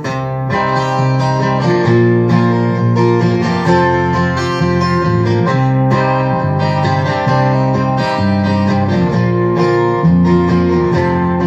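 Acoustic guitar strumming chords in a steady rhythm, an instrumental intro with no singing yet.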